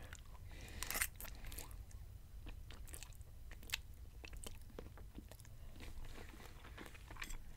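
A man chewing a mouthful of spaghetti and sausage Alfredo, close to the microphone: faint chewing with scattered small mouth clicks.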